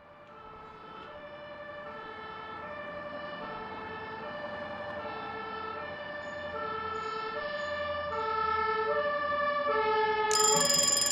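Instrumental intro of a pop song fading in from silence: a repeating melody of short, evenly paced notes that grows steadily louder. About ten seconds in, a brighter, fuller layer with high held tones joins.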